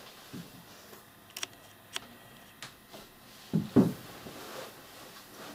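Makeup products being handled on a table: a few sharp light clicks, then a louder low knock a little before four seconds in.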